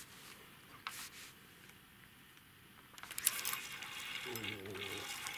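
Small splashes and drips of water as a hooked fish is drawn up through the surface on a float rod's line. The splashing starts suddenly about three seconds in, after a few faint ticks.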